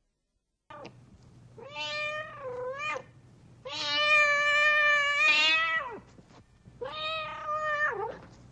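A cat meowing three times in long, drawn-out calls. The middle call is the longest and loudest.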